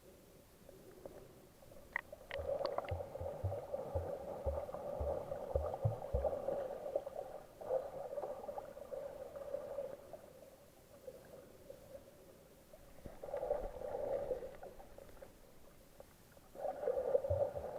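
Muffled underwater sound while snorkelling in the sea: water rushing and gurgling in waves that swell and fade, with soft low thumps about twice a second and a few sharp clicks early on.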